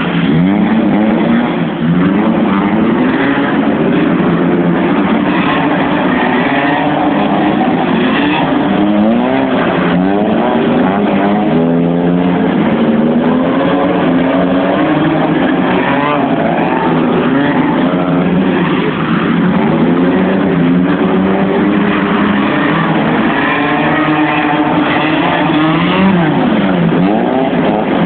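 Car engine revved hard again and again while the car is drifted on wet concrete, its pitch climbing and dropping every second or so.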